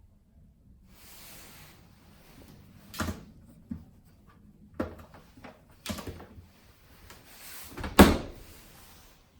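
Dishwasher racks and door being handled: soft sliding noises and a series of clunks, the loudest about eight seconds in, right after a slide.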